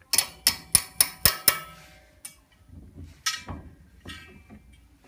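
Six sharp, ringing metal clinks in quick succession, about a quarter second apart, then a few lighter knocks: steel hardware striking the driveshaft's rear U-joint and the differential pinion yoke as the joint is seated.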